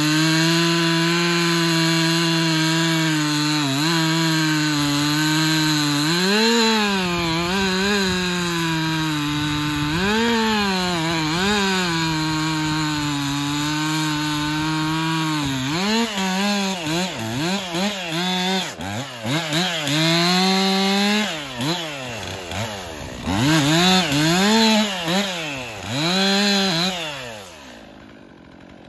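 Stihl MS362 59cc two-stroke chainsaw cutting through a loblolly pine log. The engine note holds steady under load for the first half with a few brief rises, then the throttle is revved up and down many times in quick succession, and the engine falls away about a second before the end.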